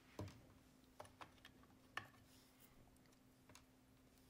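Small white plastic specimen tubes being set down on a bench and into a glass petri dish: a few faint, scattered light clicks.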